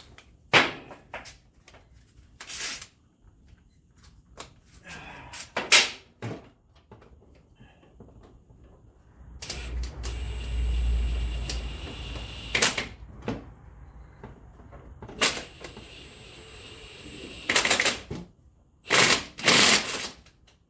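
Scattered clanks, clicks and knocks of hand tools and metal suspension parts being handled and fitted, with a few seconds of denser, steadier mechanical noise and a low rumble about halfway through.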